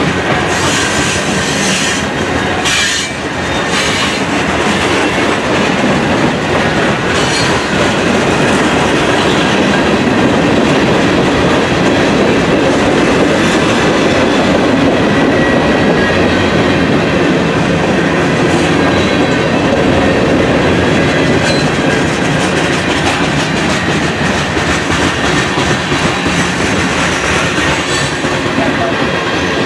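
CSX freight train's cars rolling past at close range: a loud, steady rumble and clatter of steel wheels on the rails, as gondolas, covered hoppers and tank cars go by.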